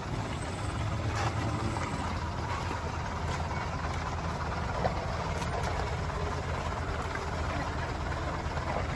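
Large bus's diesel engine running steadily under load as it crawls up a steep, rough dirt grade, heard as a steady low engine noise.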